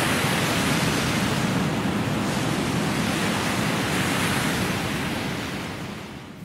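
Ocean surf breaking on a rocky shoreline: a steady wash of wave noise that fades out over the last second or so.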